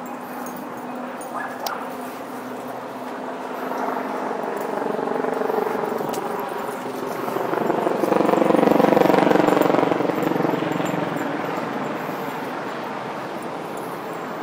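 Road traffic: a motor vehicle's engine hum swells as it goes by, loudest about nine seconds in, then fades back to a steady background.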